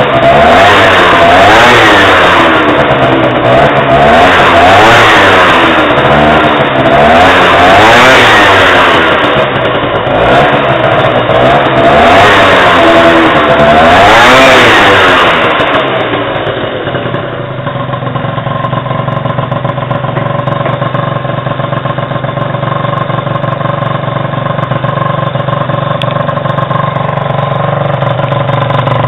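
Two-stroke scooter engine with a Yasuni R exhaust being blipped repeatedly, about seven revs rising and falling roughly every two seconds. About halfway through it settles to a steady idle.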